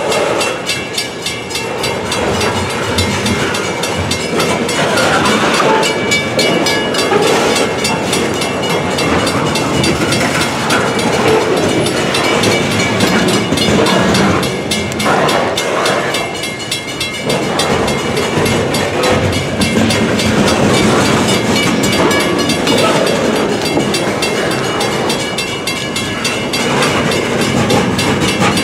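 Freight train of lumber-loaded centerbeam flatcars rolling past close by: a steady loud rumble of steel wheels on rail, with clatter over the rail joints.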